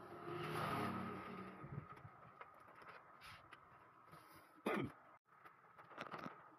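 Computer parts being handled during a PC case swap: a scraping, rustling stretch at the start, then a few scattered clicks, the sharpest about two-thirds of the way through.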